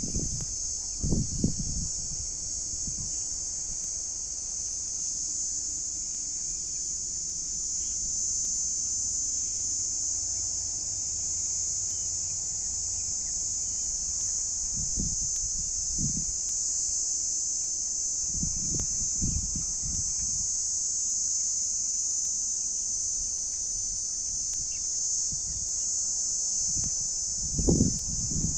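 Insects shrilling in a steady, high-pitched chorus without a break. A few low bumps come and go, the biggest just before the end.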